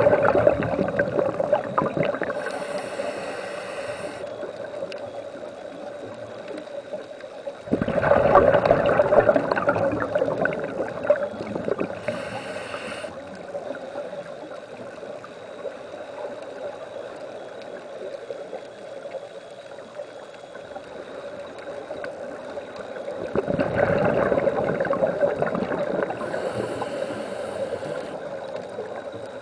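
Scuba regulator breathing heard underwater: three long gurgling rushes of exhaled bubbles, one at the start, one about eight seconds in and one about twenty-three seconds in. Shorter high-pitched hisses come between them over a steady background hiss.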